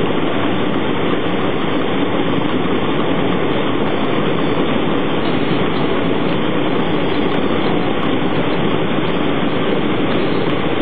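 Water rushing and breaking over rocks: a steady, even roar with no distinct rises or falls.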